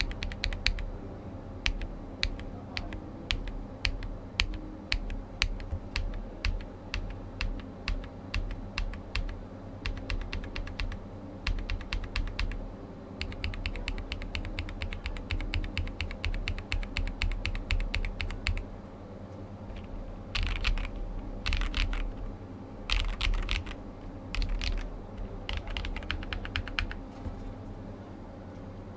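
Glorious GMMK Pro mechanical keyboard with a POM plate and Cherry-profile keycaps being typed on. There is steady keystroke clatter, then a quicker, denser run of keys about halfway through, then a few short bursts of keystrokes with pauses between them near the end.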